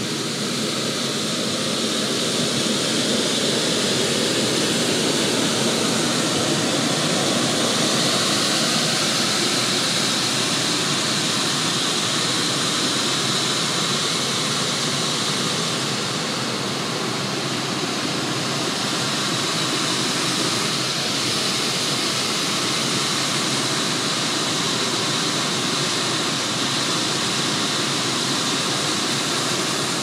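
Giant air-conditioner outdoor units running behind louvred walls: a steady rush of large fans moving air, with a faint high whine over it.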